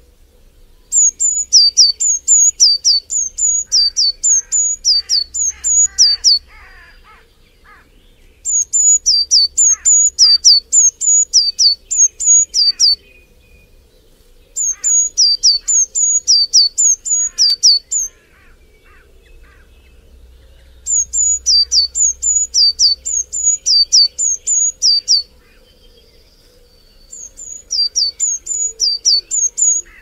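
A songbird singing loud, high, down-slurred whistled notes in quick series of about two to three a second. It sings five bouts of several seconds each, with short pauses between them, while fainter chirps from other birds sound underneath.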